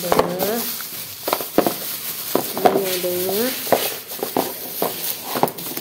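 Clear plastic wrapping crinkling and rustling in irregular crackles as a ring light is unwrapped from its bag. A voice is heard briefly near the start and again midway.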